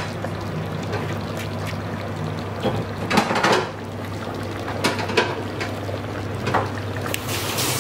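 Paya broth of goat trotters boiling hard in an open pressure-cooker pot: a steady bubbling with a few louder pops and splutters, over a constant low hum.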